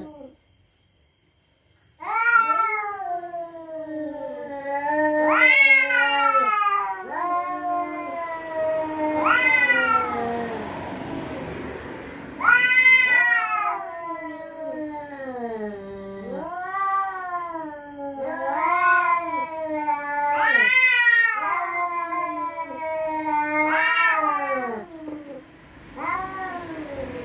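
Cats yowling at each other in a territorial standoff: long, wavering yowls that rise and fall in pitch, one after another after a short silence at the start.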